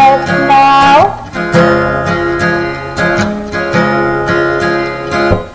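Children's song: a sung line ends about a second in, then an instrumental break of strummed guitar chords follows, dropping away just before the singing would resume.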